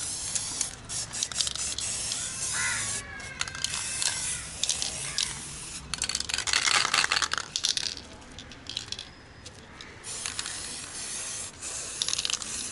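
Aerosol can of gold spray paint hissing in a series of short bursts as a coconut is sprayed gold, the longest and loudest burst about six to eight seconds in.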